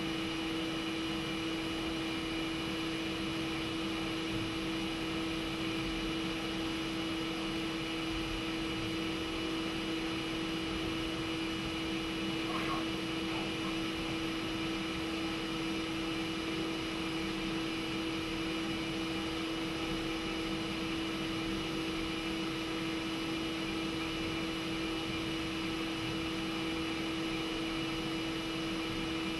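CNC machine running steadily during a measuring-probe cycle: an even machine hum with a strong steady tone and fainter higher tones, unchanging throughout.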